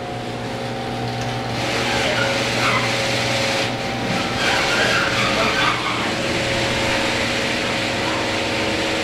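Automatic garage door opener running: its electric motor hums steadily as the door travels, growing a little louder over the first two seconds.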